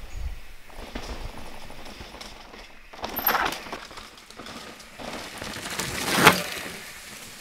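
Mountain bike on a rocky forest trail: tyres rolling and rattling over rock and dirt. Two rushes of tyre noise as the bike passes close, the second, about six seconds in, short and the loudest.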